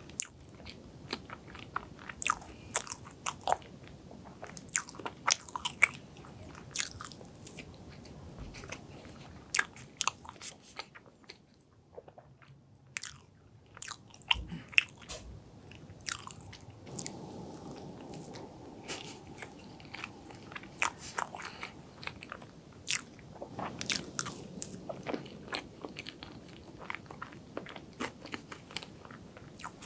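Close-miked eating sounds of soft chocolate cream cake and strawberry: chewing with many sharp, wet mouth clicks and smacks, with a brief quieter pause about halfway through.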